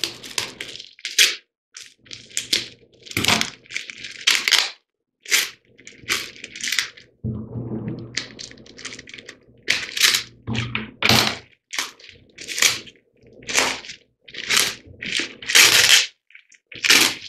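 Packing tape being ripped and peeled off a parcel and bubble-wrap plastic crinkling as it is unwrapped: a string of short, irregular crackling rips.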